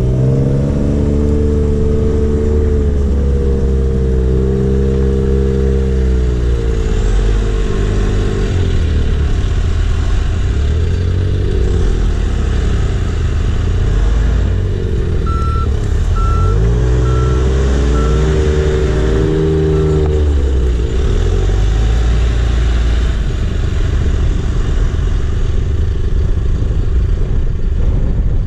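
A diesel engine of heavy equipment running under load, its pitch rising and falling as it speeds up and slows. About halfway through, a reversing alarm beeps a handful of times, roughly one beep every 0.7 seconds.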